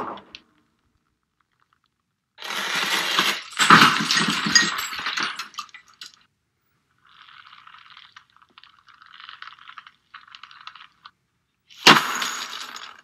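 Foley effects performed with props: two loud noisy bursts, then a softer stretch of light metallic jingling and tapping, and a sharp burst near the end.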